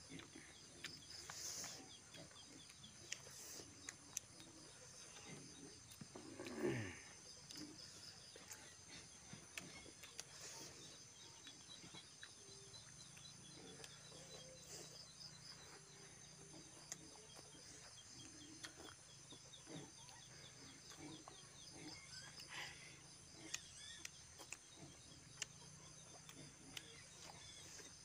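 Faint chewing and lip-smacking of people eating with their hands, many small wet clicks, over a steady high insect trill. About six and a half seconds in, one short sound falls steeply in pitch and is the loudest moment.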